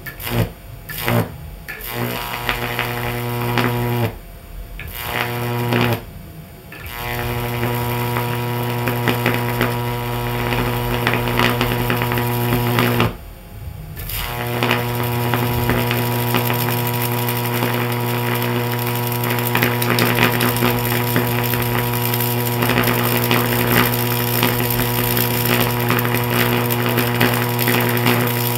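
High-voltage arc from a microwave-oven-transformer stack run off a variac: a loud, deep electrical buzz with a crackling hiss on top. It strikes in short bursts at first, goes out briefly about four seconds, six seconds and thirteen seconds in, then burns steadily.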